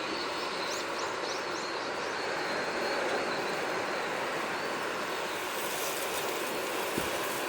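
Steady wash of sea waves on the shore, with a few faint, high bird chirps about a second in.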